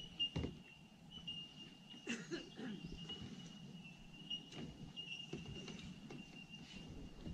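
Quiet water's-edge ambience: a steady high-pitched trill throughout, with a few soft knocks and splashes from kayak paddles and hulls, the clearest just after the start and about two seconds in.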